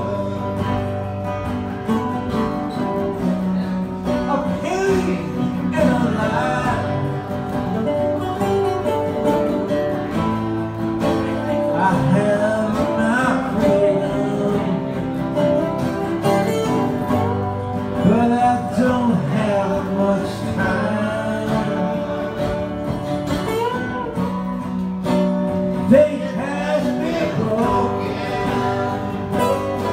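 Several acoustic guitars played live together, a slow country-rock ballad of strummed and picked chords with a bending melody line over them. There is a single sharp accent near the end.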